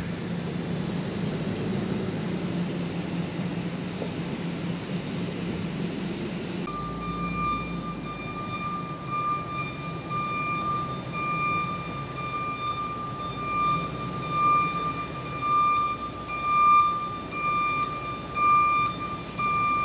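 Dump truck's engine running, then from about seven seconds in its reversing alarm starts beeping, about one beep a second, growing louder as the truck backs closer.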